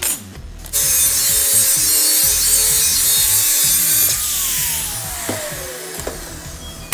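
DeWalt angle grinder cutting through steel flat bar for about three seconds, a loud steady grinding hiss over the motor whine. The trigger is then released and the motor spins down with a falling whine.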